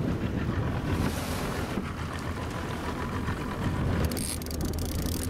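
Boat motor running steadily as a low rumble, with wind buffeting the microphone. A run of quick clicks comes in near the end.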